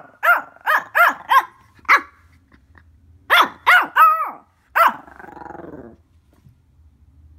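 Small long-haired black puppy yapping at the person in play: a quick run of six high yaps, a pause of over a second, four more, then a short low growling grumble about five seconds in.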